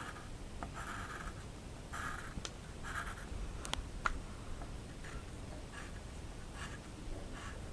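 Drawing strokes scratching on paper: short scratches about once a second, fainter in the second half, with a couple of sharp clicks near the middle.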